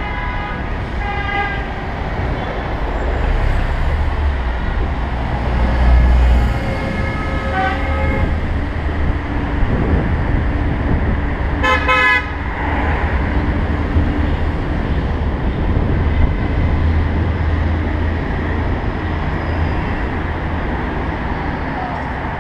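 Busy city-street traffic heard from a moving bicycle, with steady wind and road rumble on the microphone. Vehicle horns toot briefly near the start and again about eight seconds in, with a louder, sharper horn blast about twelve seconds in.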